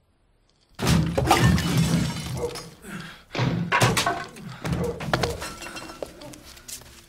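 Loud crashing and breaking glass in several bursts, as of objects being smashed, starting about a second in.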